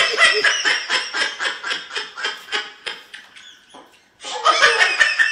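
A person laughing hard in rapid, repeated pulses that fade out about three seconds in; after a brief pause a loud burst of voice starts again.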